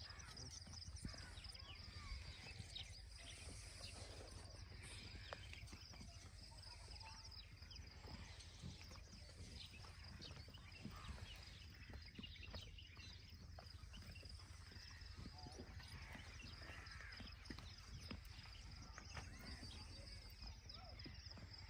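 Faint, scattered small clicks and snips of hand shears cutting a sheep's fleece, over a steady high-pitched whine.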